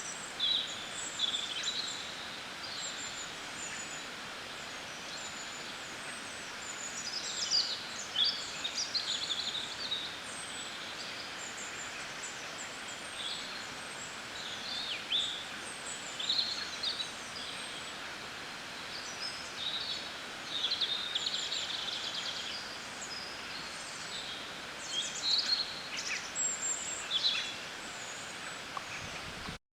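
Springtime birdsong from several songbirds, short high chirps and trills coming and going, over a steady rushing background of river water. It stops abruptly near the end.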